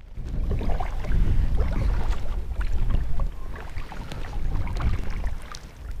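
Kayak on a pond: wind rumbling on the microphone over many small splashes and drips of water from paddling. The rumble is loudest in the first half and eases a little after about three seconds.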